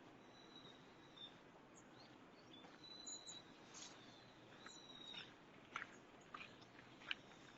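Faint bird calls in quiet forest ambience: thin high whistles and short chirps, with a few short sharp ticks near the end.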